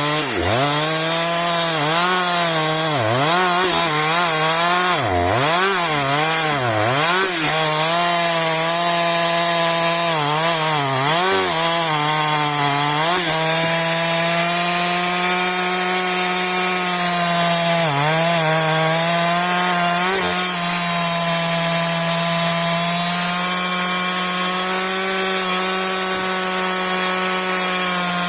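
Husqvarna two-stroke chainsaw running at high revs while cutting a log. In the first half its pitch dips and recovers again and again as it labours in the cut. In the second half it holds a steady high pitch, with a couple of brief dips.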